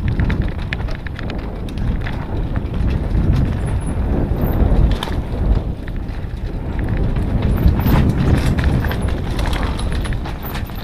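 Mountain bike descending a rough, stony singletrack, heard from a GoPro on the bike: a steady low rumble of wind and tyres on the trail, with frequent sharp rattles and clicks from the bike jolting over stones.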